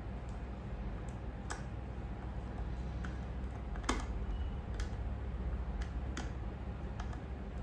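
Scattered small clicks and taps of a screwdriver and wire against a plastic switch module's screw terminal as a wire is fastened in, the sharpest about four seconds in.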